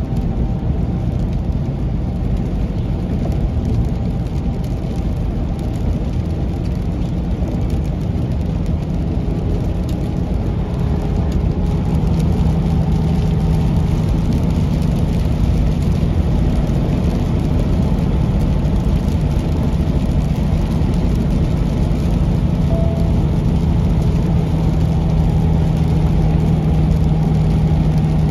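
Semi truck's engine and tyre noise heard from inside the cab while cruising, a steady drone. A low engine tone grows stronger and the noise a little louder from about halfway through.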